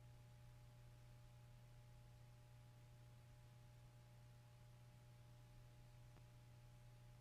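Near silence: a faint, steady low hum with a couple of fainter steady higher tones over a light hiss.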